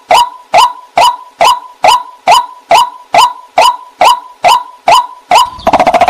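White-breasted waterhen (dahuk) calling: a loud, even series of short, sharp notes, about two a second. Near the end it breaks into a faster, stuttering chatter.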